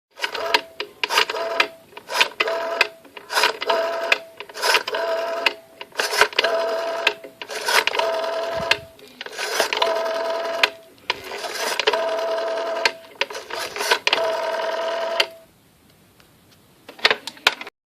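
Old telephone sound effect: rapid mechanical clicking in bursts, with a steady tone cutting in and out between them. It breaks off about three-quarters of the way through, followed by a few last clicks near the end.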